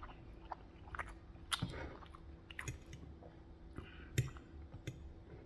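Close-up chewing of a mouthful of food: faint, irregular wet mouth clicks and smacks.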